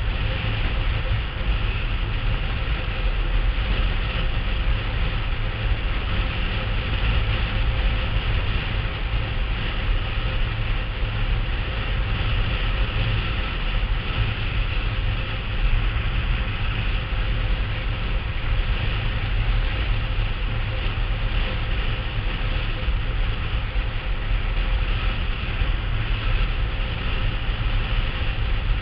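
A blokart sailing at speed: a steady rumbling rush of wind buffeting the microphone, mixed with the kart's wheels rolling on hard, dry lakebed.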